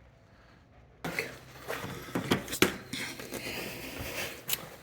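Loose objects being handled and moved: a run of sharp knocks and clatters with scraping, starting about a second in after a quiet moment.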